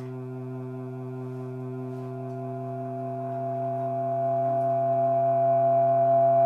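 A sustained, unwavering low drone with many overtones from improvised cello and no-input mixing board, slowly swelling louder toward the end.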